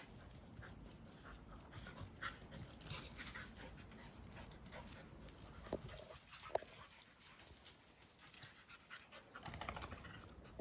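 Two dogs play-fighting: panting and scuffling, with two short sharp sounds a little past the middle.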